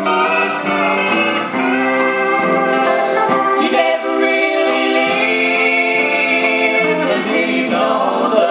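Gospel music: a band with steel guitar playing under group singing in harmony.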